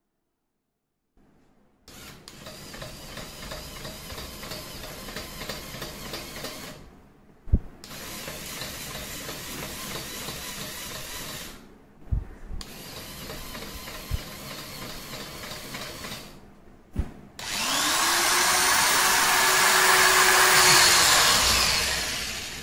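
Small 12 V DC motors driving the rig's lead-screw slides run in three stretches of a few seconds each, broken by sharp clicks as the relays switch. Near the end the mounted electric hand drill spins up with a rising whine, runs loudly for about four seconds, then winds down.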